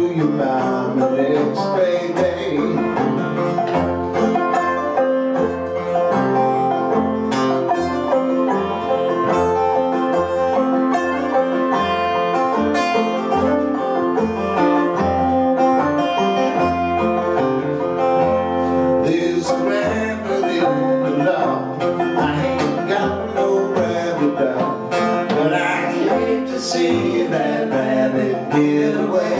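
Banjo and acoustic guitar playing together in a steady, picked folk-blues tune.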